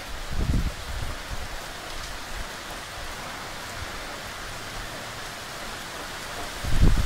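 Heavy rain falling steadily on lawn, trees and paving, an even hiss. Two brief low rumbles rise out of it, one about half a second in and one near the end.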